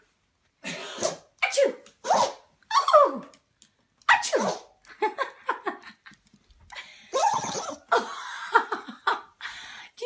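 Small Pomeranian sneezing over and over, about a dozen short sneezes in quick succession. It is an excited dog's sneezing fit.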